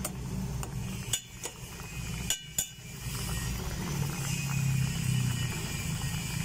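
A metal spoon clinking against a stainless steel pot several times in the first three seconds while stirring vegetables, over the steady bubbling of water at the boil.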